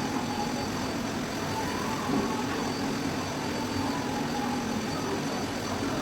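Steady machine noise: a motor running without change, with a constant hiss and a faint high whine.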